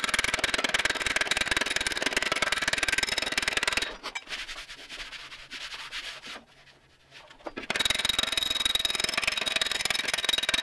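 Slapping file striking a steel fender over a dolly in a rapid, sped-up run of strikes, shrinking the high spots of the stretched panel. The strikes stop for a few seconds in the middle, then start again.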